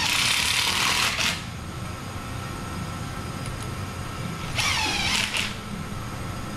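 Cordless power driver running the supercharger's front nose-cover bolts in, in two short bursts: one right at the start that whines up in pitch, and another about four and a half seconds in whose pitch dips and recovers as the bolt takes up.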